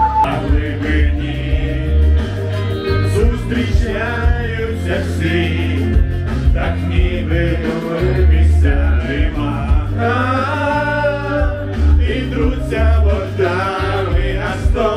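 A man singing karaoke into a handheld microphone over a backing track with a heavy bass line.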